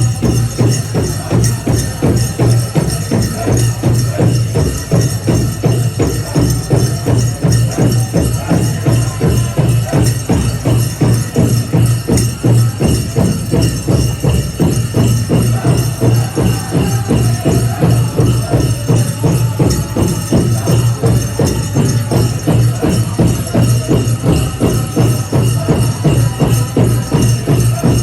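Powwow drum: a large drum struck in a steady, even beat throughout, with a jingling rattle over it.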